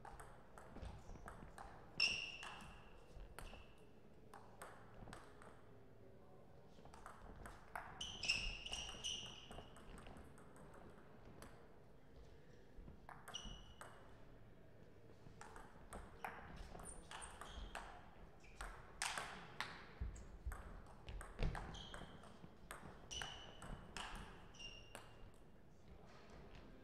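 Table tennis rallies: the ball clicks sharply off the rackets and the table in quick runs of hits, with pauses between points. Short high squeaks, typical of players' shoes on the court floor, come in among the hits.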